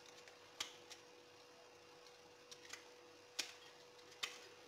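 Vegetable peeler shaving the tough outer layer off an artichoke's stem and base: a handful of short, sharp clicks at uneven intervals, the strongest a little past the middle and near the end.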